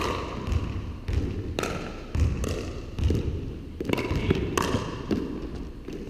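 Plastic pickleballs being struck by paddles and bouncing on a hardwood gym floor: a quick, irregular series of sharp knocks, each with a short echo around the hall.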